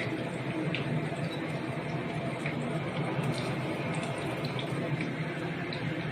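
Breadcrumb-coated eggplant slices frying in a pan of hot cooking oil: a steady sizzle with scattered small pops.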